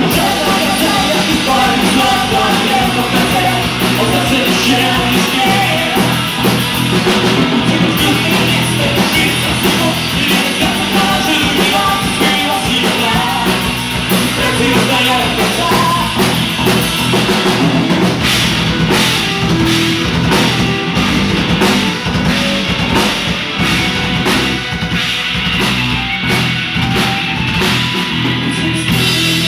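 Rock band playing live at full volume: drum kit driving the beat under the band, with singing.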